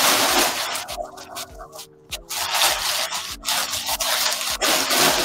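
Packing paper rustling and crinkling as a wrapped item is pulled from a cardboard box and unwrapped, in two long stretches with a pause of about a second between them. Faint background music with a steady beat plays underneath.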